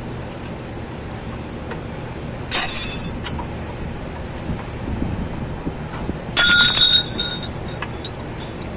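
Metal tools clinking against steel car suspension parts, with a high ringing tone, in two short bursts of rapid clicks about two and a half and six seconds in, over a steady low hum.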